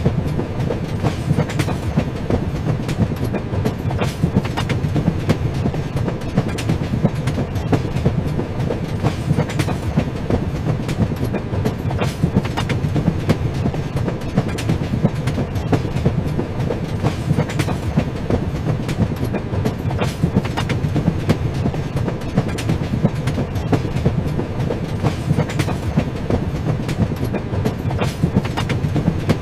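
Train running along the track: a steady low rumble with frequent sharp clicks and clacks of the wheels passing over rail joints.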